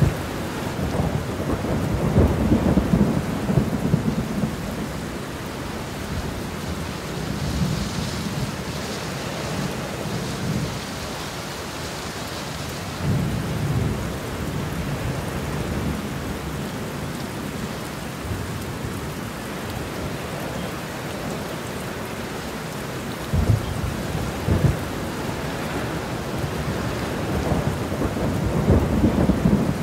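Heavy rain pouring steadily, with thunder rumbling several times through it, the strongest rolls about two seconds in and near the end.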